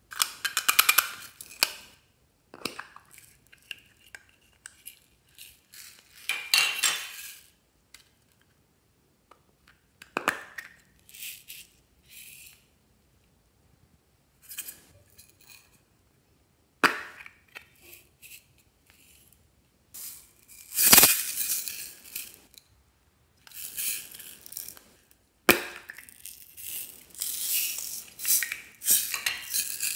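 Small hard plastic toy cases handled and clicked open, with beads and sprinkles shaken and tipped out of them: a run of separate rattling, clinking bursts with sharp clicks between them.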